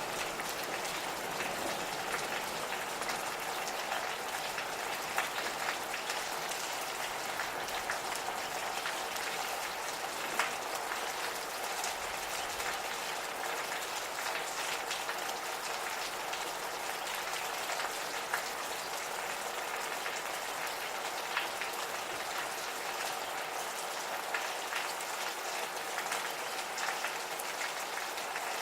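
Gentle rain falling steadily, a fine even patter with scattered louder drips ticking on nearby surfaces.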